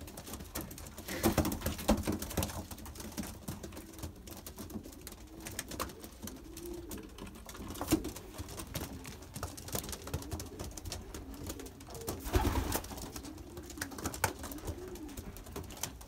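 Young racing pigeons pecking at a shoe and its laces: a scatter of soft, quick taps, with low pigeon cooing a few times in the middle and near the end.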